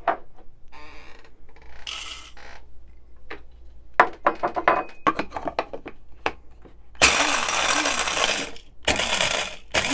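Coffee beans clattering as they go into the cup of an electric blade coffee grinder and the lid is fitted. Then the grinder runs in two loud pulses, about seven and nine seconds in, its blade chopping the beans.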